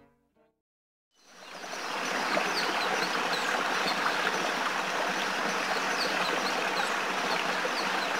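Rushing stream water, a steady full rush that fades in about a second in after a moment of silence. Faint short high chirps sound over it.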